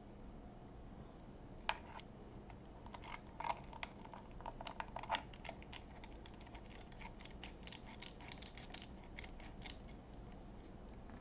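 Small, irregular clicks and ticks as a plastic spacer is turned down a bolt by hand against a small metal bracket, thickest from about three to five seconds in and thinning out before ten seconds.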